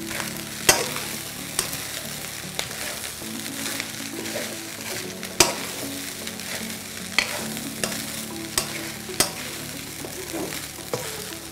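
Vegetable fried rice sizzling in a wok as it is stirred and turned with a plastic spatula, with irregular sharp knocks of the spatula against the pan, the loudest near the start and about halfway through.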